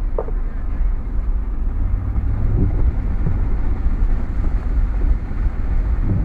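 A vehicle on the move: a low, steady rumble of road and engine noise.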